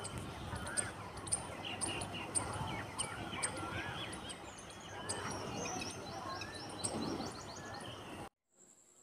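Small birds chirping and twittering, many short wavering calls with a quick run of high chirps in the middle, over a steady background hiss; the sound cuts off abruptly near the end.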